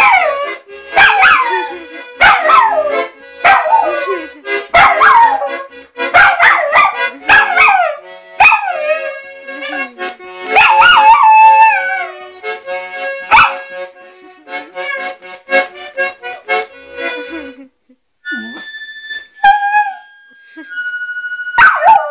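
A puppy howling along to music: short howls that slide down in pitch, about one a second, then a longer drawn-out howl, over a held chord from a reed instrument. Near the end a few single notes sound on their own and the puppy howls once more.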